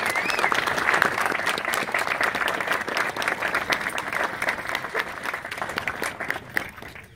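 Large crowd applauding at the end of a speech, the clapping thinning and dying away near the end.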